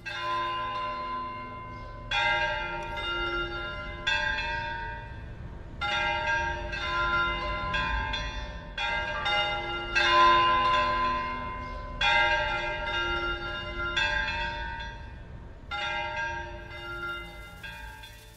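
Bells pealing: one struck note after another, about every one to two seconds, each ringing on and overlapping the next.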